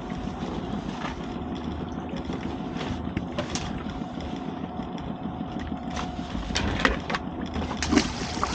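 Small boat outboard motor idling steadily, with a few sharp knocks near the end.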